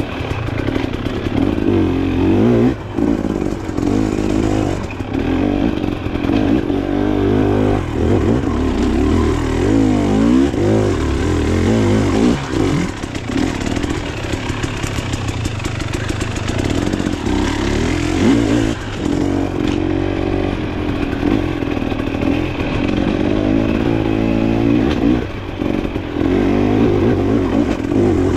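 Off-road dirt bike engine being ridden hard, its revs rising and falling over and over as the throttle opens and closes along the trail.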